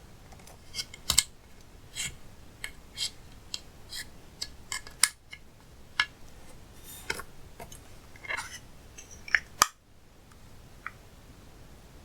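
Slime being pressed and stretched by hand, giving sharp clicking pops and short crackles at irregular intervals, with the loudest pops about a second in and near the end.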